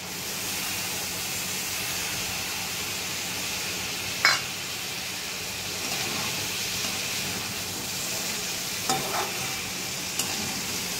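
Potato and long-bean sabzi sizzling steadily in a metal kadhai while it is stirred with a metal spatula. One sharp clink of the spatula on the pan comes about four seconds in, and a few lighter knocks follow near the end.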